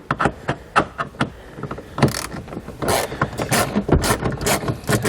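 Hand ratchet with a T25 Torx bit clicking as it backs out a trim bolt, a run of quick, even clicks that grows louder and denser about two seconds in.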